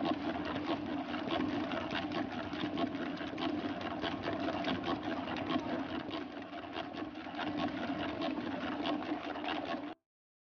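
Electric mixer running steadily, its beater creaming margarine, butter and sugar in a metal bowl, with a steady hum and a fast, fine rattle. It cuts off abruptly near the end.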